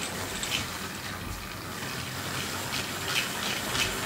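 Hornby OO gauge 0-4-0 tank engine running round the track with its freight wagons: a steady whirr from its motor driving a large gear, with a few light clicks in the second half. It runs fairly smoothly, though not silky smooth, because of its direct motor-to-gear drive.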